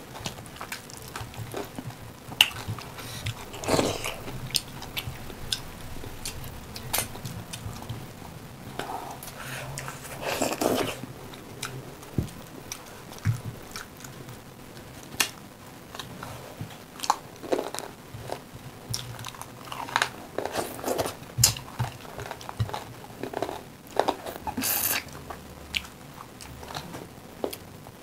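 Close-miked chewing and lip-smacking of two people eating rice, dal and chicken by hand, with many scattered wet mouth clicks.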